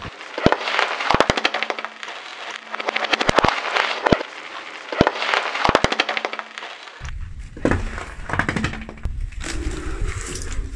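A car tyre rolling over bath bombs and crushing them: a run of dry, crackling crunches and sharp snaps as they crumble to powder. About seven seconds in the crunching gives way to a low rumble with a few knocks.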